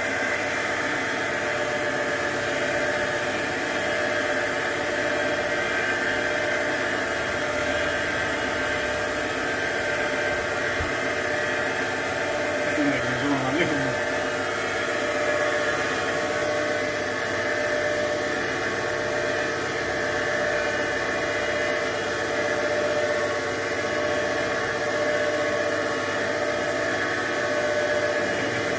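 A manual lathe converted to CNC running steadily, a machine hum with several fixed whining tones.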